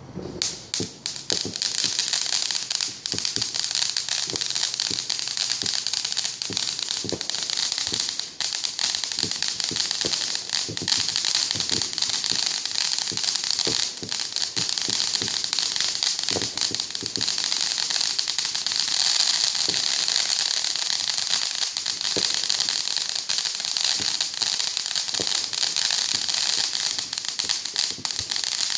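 Fireworks crackling without a break: a dense hiss of tiny crackles with scattered louder pops, starting just after the opening.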